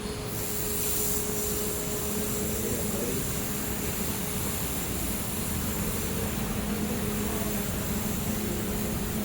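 Air-cooled handheld laser welder running: a steady machine whoosh with a hum, and a high hiss that comes in just at the start and holds steady.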